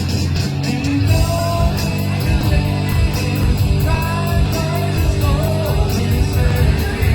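Live rock cover band playing: a sung vocal line over electric guitar, bass and a steady drum beat.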